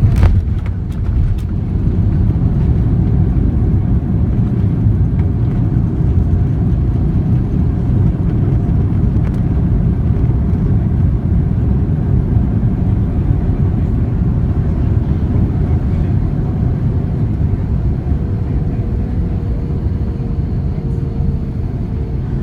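Steady low rumble inside an Airbus A330-300 cabin: engine and airflow noise, with a couple of brief knocks in the first second or so.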